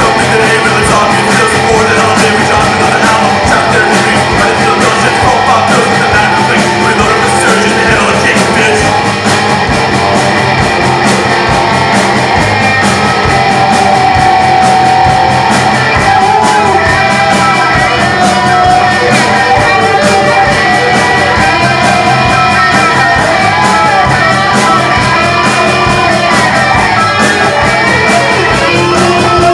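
Live rock band playing loud: electric guitars, bass guitar and drum kit, with a male voice singing.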